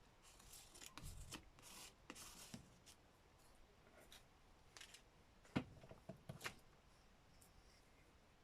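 Scissors cutting paper, faint: soft snips and paper rustling in the first couple of seconds, then a few sharp clicks about five and a half to six and a half seconds in.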